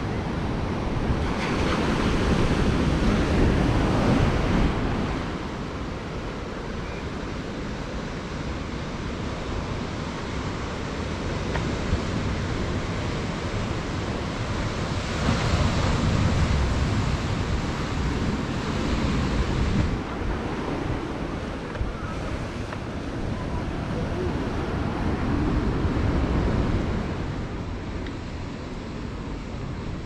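Ocean surf breaking on rocks and a dark sand beach, swelling louder and easing off every several seconds, with wind buffeting the microphone.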